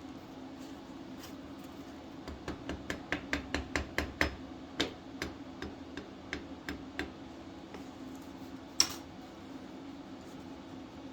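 Rapid light tapping on metal, about five taps a second, slowing and fading over a few seconds, then one sharper, louder knock near the end, over a steady low hum.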